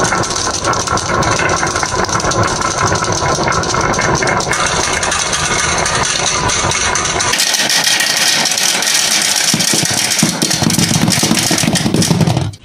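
Many glass marbles rolling down a winding grooved wooden track, a dense continuous rattle of marbles clicking against the wood and against each other. About seven seconds in, the deep rumble drops out and the rattle turns thinner and brighter.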